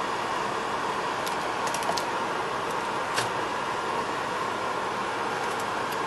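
Steady background hiss with a few light clicks, about a second in, around two seconds and at about three seconds, from a screwdriver and copper wire being handled at an electrical outlet's terminal screw.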